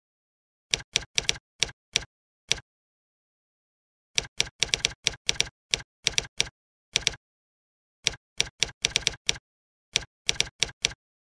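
Computer keyboard being typed on: short runs of sharp keystroke clicks with pauses of about a second between runs.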